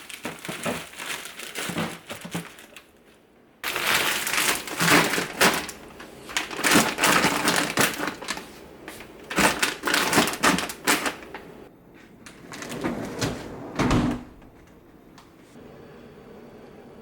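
Plastic crinkling and rustling with quick clicks and knocks as objects are handled, in busy runs with a lull about three seconds in and a last flurry near 13 to 14 seconds.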